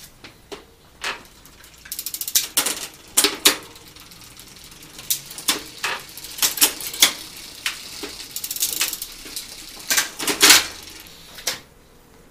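Hand tools and small metal bicycle parts clinking, clicking and rattling in irregular clusters during repair work on a bike's gear cable and shifter, with a loud burst of clinks about ten seconds in.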